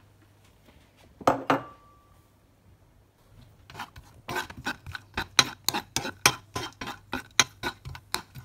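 Metal spoon stirring cashews in ghee in a non-stick frying pan, scraping and clicking against the pan about four times a second from about four seconds in. Before that, a couple of knocks about a second in as the cashews are tipped in from a bowl.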